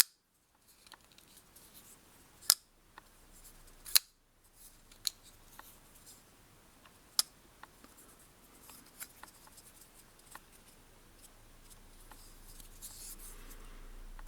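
Petrified Fish PF818 ball-bearing flipper knife being flicked open and snapped shut: a string of sharp metallic clicks at uneven intervals. A few loud clicks stand out among many fainter ones.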